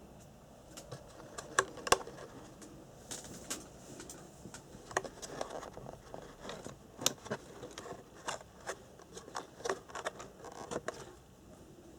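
Irregular clicks, taps and light rustling of small plastic items and packaging being handled, with the sharpest clicks about two seconds in and near the middle.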